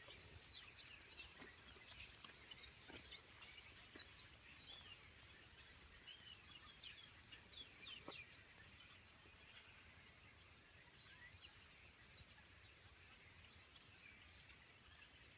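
Faint chorus of many small birds chirping and twittering at roost in a tree at dusk, busy for the first half and thinning out after, with a few soft knocks.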